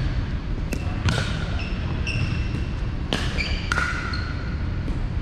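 Pickleball rally: sharp pops of paddles hitting the hollow plastic ball and the ball bouncing on the gym floor, about five in all, each with a brief ringing tone after it, over a steady low rumble.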